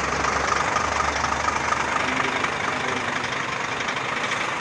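Diesel truck engine idling steadily, with a low rumble that weakens about a second in.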